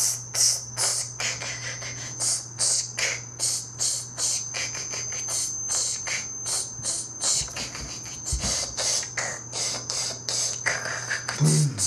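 Mouth beatboxing: an even beat of short, sharp hissing hi-hat sounds, a few a second, over a steady low hum.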